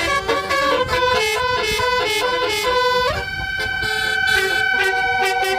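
Basuri multi-tone 'telolet' air horn playing a quick tune of short stepping notes. About halfway through it glides upward into one long held note.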